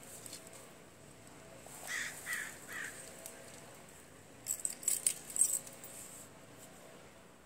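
A bird calling three times in quick succession, then a quick cluster of sharp clicks and rustles, like handling noise close to the microphone.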